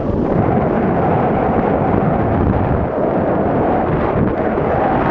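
Steady loud rumble of wind buffeting the microphone, mixed with the scrape of a snowboard sliding over packed snow during a run downhill.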